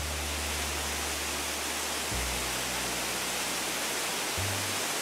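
Steady rushing noise of water being emptied from a tanker truck's pipe into a river, over background music whose low bass notes change twice.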